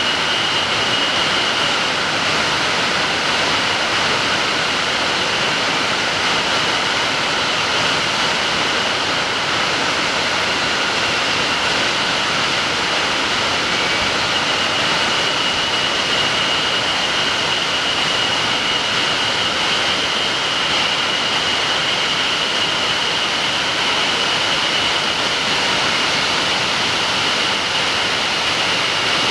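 A big two-tier waterfall, nearly 40 m high, rushing steadily, with a thin steady high tone over the noise of the water.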